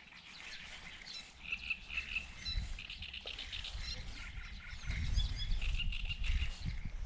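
Frogs croaking in rapid pulsed trills with birds chirping, heard across open water. A low rumble builds in the second half.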